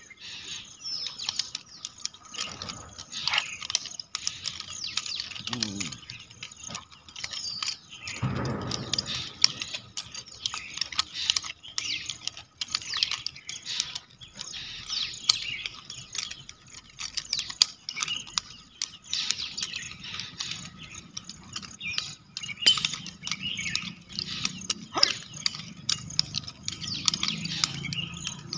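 Nunchaku being swung and caught, its chain and sticks making irregular rattling clicks throughout. Birds chirp in the background.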